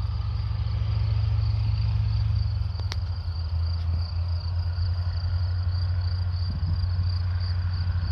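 Dassault MD312 Flamant's twin inverted-V12 piston engines running at taxi power: a steady low drone whose pitch drops a little about three and a half seconds in. Crickets chirp steadily over it.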